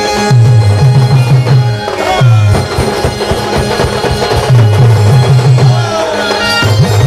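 Loud Adivasi rodali band music: a deep bass pulses in quick runs of short beats under a melody line.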